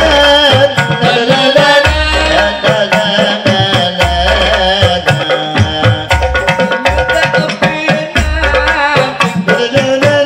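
Rebana frame-drum ensemble playing: a steady rhythm of deep open drum strokes and sharp slaps, with tambourine jingles, under a lead voice singing a wavering, ornamented melody.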